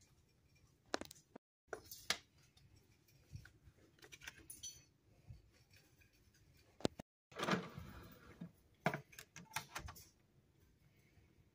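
Irregular plastic clicks and rattles of a CD jewel case being opened and the disc pried off its hub, then the disc pressed onto the spindle of a top-loading CD player. The sound cuts out completely for a moment twice.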